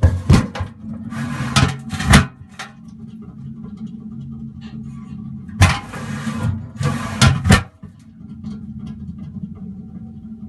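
Metal machine shop noise: a machine running with a steady low hum, broken by four loud bursts of noise lasting up to about a second and scattered small metal clanks and clicks.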